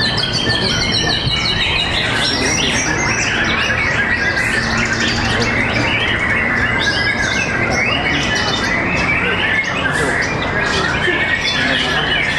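Many murai batu (white-rumped shamas) singing against each other, a dense chorus of overlapping whistles, chirps and trills with no break. A steady low hum lies underneath.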